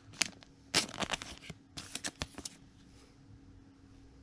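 Trading cards sliding and snapping against each other as a pack is flipped through by hand, a quick run of short swishes and clicks that dies down about halfway through.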